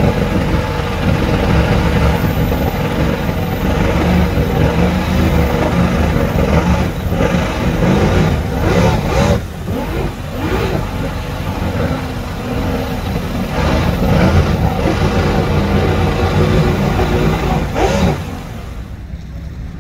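Outboard motor running hard in gear, its propeller churning water as it pushes a small boat up onto its trailer (power loading). The sound dips briefly near the middle and falls away near the end.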